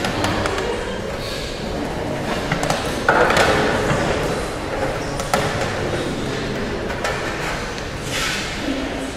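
Unaccompanied solo performance in a contemporary style: airy, breathy bursts and scattered clicks and taps with hardly any clear pitch, the airy bursts coming about three seconds in and again near the end.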